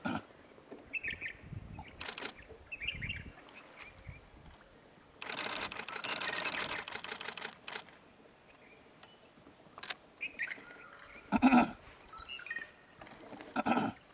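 Several DSLR camera shutters firing: single clicks here and there and one long rapid-fire burst in the middle. Short bird calls come in between, and two louder thumps come near the end.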